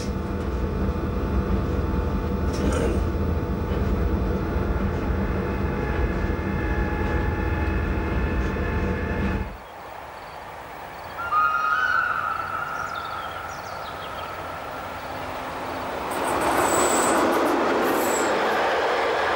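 Electric metre-gauge train running: a steady rumble with a low hum heard on board, which cuts off about nine and a half seconds in. Then a quieter lineside sound with a brief squeal, and the Glacier Express panorama train passing close by near the end in a rising rush of wheel and rail noise.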